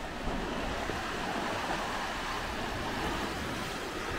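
Steady rushing outdoor noise with a low rumble underneath.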